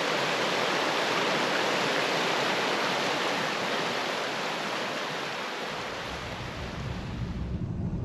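Steady rush of a fast-flowing creek over rocks, fading out over the last few seconds. A low vehicle rumble comes in near the end.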